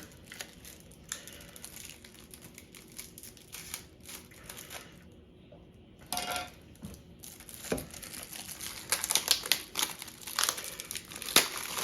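Hands handling the parts and packaging of a rolling knife sharpener kit: scattered rustling and light clicks, with a brief lull about five seconds in and a denser run of clicks and taps over the last three seconds.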